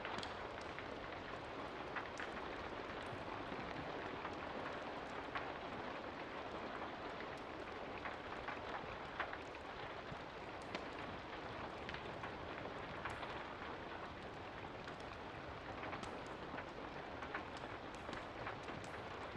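Steady rain falling, an even hiss with scattered sharp ticks of drops throughout.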